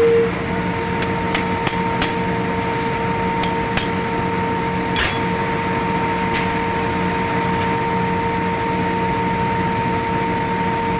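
Sharp metal taps and knocks from tools worked on a truck idler pulley bearing: several in quick succession, then a few spaced ones, stopping about six seconds in. A steady mechanical hum runs underneath.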